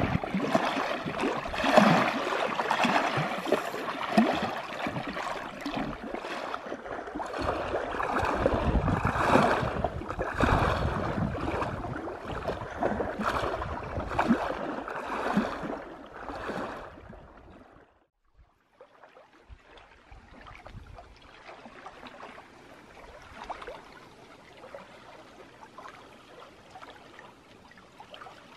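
Small lake waves lapping and splashing against shore rock, with irregular slaps. Louder for the first seventeen seconds or so; after a short gap, fainter lapping.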